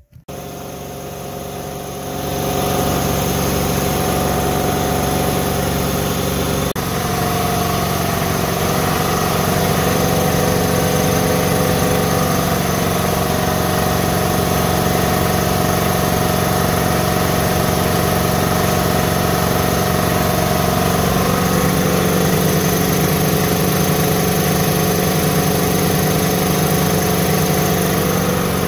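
Two Ingersoll Rand electric piston air compressors starting up and running steadily, pumping their tanks up from empty. The sound grows louder about two seconds in.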